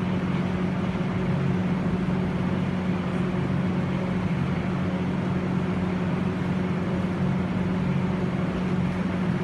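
Machinery running with a steady hum, a constant low tone over an even rushing noise that does not change.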